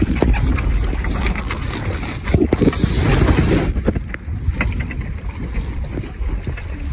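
Wind buffeting the microphone over water rushing past the hull of a small two-person sailing dinghy under way, with scattered clicks and knocks. A louder rush of water comes about two and a half seconds in, lasting about a second.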